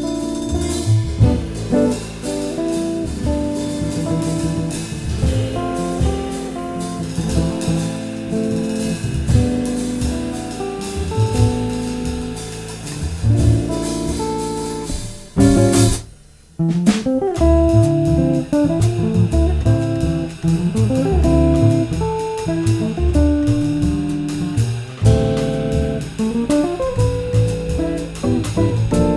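Jazz trio playing: electric guitar melody over double bass and drums. About halfway through, the band hits a sharp accent and stops for about a second, then comes back in.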